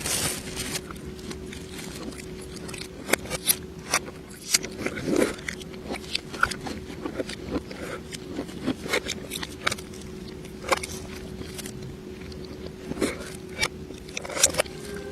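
Close-miked mukbang eating sounds played in reverse: irregular crunching and wet clicking of chewing and biting, with sharp snaps scattered through, over a steady low hum.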